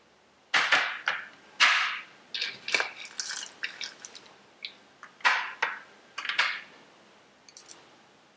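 A steel spoon scraping and tapping small plastic bowls as peanuts and cashews are tipped into a plastic bowl of soaked poha: a series of short clatters and rattles in clusters, with a few faint clicks near the end.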